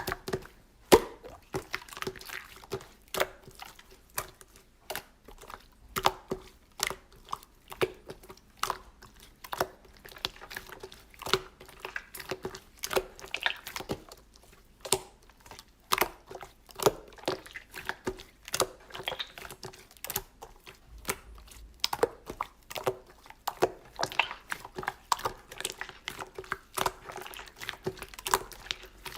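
A run of irregular sharp clicks and taps, a few each second, over a faint steady hum.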